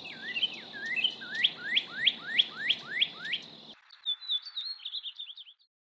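A songbird singing a series of about eight rising whistled notes, roughly three a second, followed after an abrupt cut by softer, quick high twittering.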